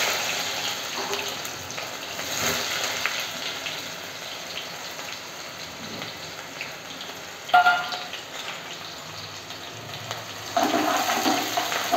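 Chopped onions sizzling in hot oil in a steel pot: a loud hiss as they go in at the start, settling into a steady, quieter frying hiss. About seven and a half seconds in, a short metallic ring as a steel plate knocks against the pot.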